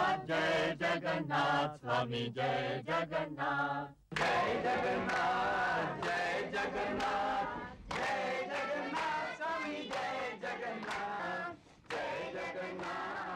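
A choir of men and women singing a devotional chant, in short clipped phrases for the first few seconds, then in longer held lines.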